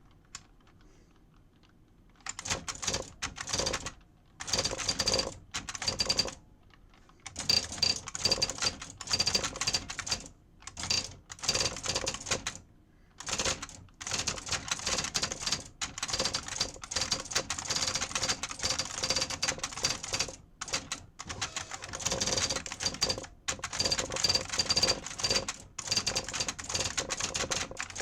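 IBM Wheelwriter 30 electronic daisy wheel typewriter typing, its printwheel striking characters in rapid bursts separated by short pauses, starting about two seconds in.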